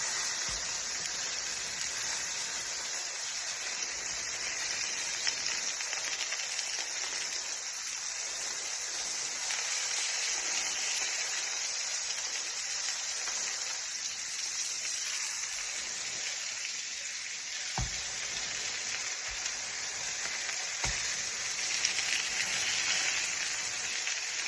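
Beef burger patties sizzling steadily on a hot grill, a continuous frying hiss, with two light clicks in the second half.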